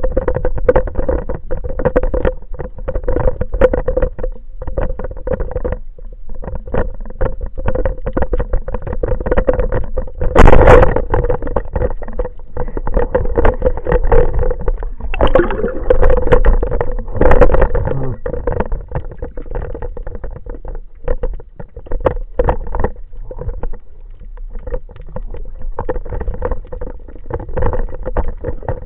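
Muffled underwater sound on a camera: constant crackling and clicking of water over a steady hum. About ten seconds in there is one sharp, loud snap, the band-powered speargun firing at a squid.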